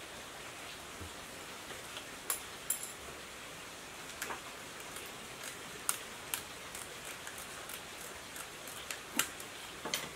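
Light, irregular clicks and ticks of enamelled copper wire being handled and pushed into the slots of an electric water pump motor's stator during rewinding, over a steady hiss.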